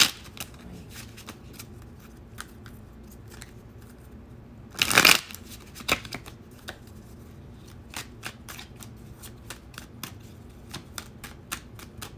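A deck of oracle cards being shuffled by hand. A loud riffle of cards comes about five seconds in, followed by a run of light card clicks and slaps that come quicker near the end.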